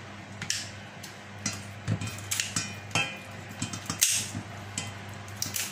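Kitchen scissors cutting raw chicken over a stainless steel colander: irregular snips, clicks and metal clinks against the bowl, with the sharpest knock about four seconds in.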